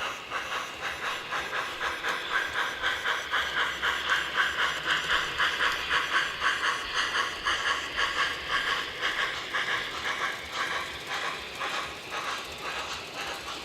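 Model steam locomotive's onboard sound system playing steady steam chuffing, about four chuffs a second, with hiss. It grows louder toward the middle and then fades, as the locomotive passes along the track.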